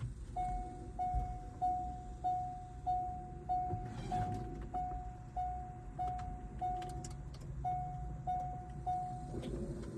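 Corvette C5's electronic warning chime, one steady mid-pitched beep repeating about every 0.6 seconds, with one beat skipped about seven seconds in, then stopping near the end.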